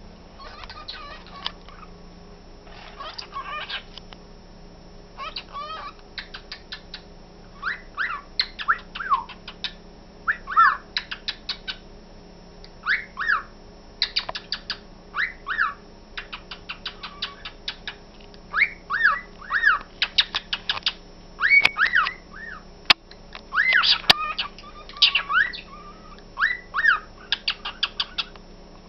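A cockatiel and a budgerigar chirping and whistling together, repeating the same short whistled notes that sweep up and down, often in pairs, between quick runs of clicky chatter.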